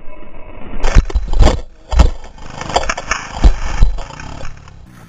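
Motocross crash heard from a helmet camera: a series of heavy thumps and scrapes as the rider and dirt bike tumble on the dirt, over low rumbling, dying away about four seconds in.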